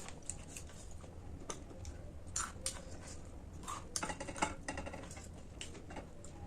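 Close-up chewing and crunching of crisp snack food: irregular crisp clicks, with a quick run of them about four seconds in.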